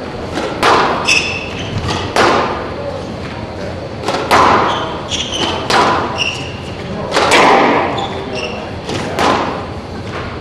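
Squash rally: the ball is struck by rackets and smacks off the court walls in sharp, echoing thwacks about once a second, with court shoes squeaking briefly on the wooden floor between shots.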